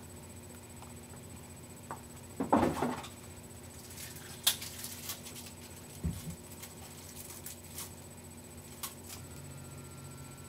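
Hands brushing, tapping and slapping against each other and against a shirt while signing: a louder brushing rustle about two and a half seconds in, then scattered light taps and clicks and a soft thud about six seconds in.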